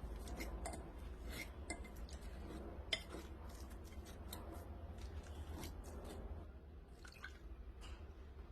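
Faint kitchen preparation sounds: scattered clicks and clinks of utensils and dishes being handled, with one sharper click about three seconds in, over a low steady hum.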